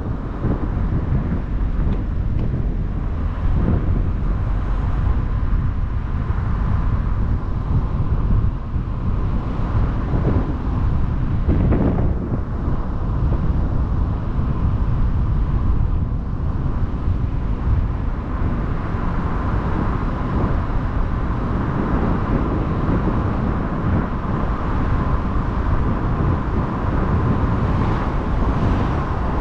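Wind buffeting the microphone of a camera mounted on the roof of a moving car, over the steady rumble of the car's road and tyre noise.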